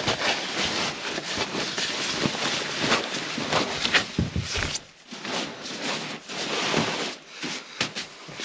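Nylon fabric rustling and crinkling as a down sleeping bag and an inflatable sleeping pad are shifted and smoothed on a tent floor, in irregular bursts with a short lull about five seconds in.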